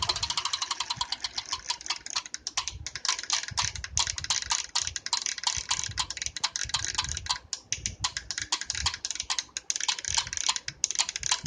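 Tacx Vortex Smart bike trainer running with a grinding noise: a fast, steady stream of sharp clicks, several a second, over a low pulse that swells about once a second. The grinding is the fault being shown.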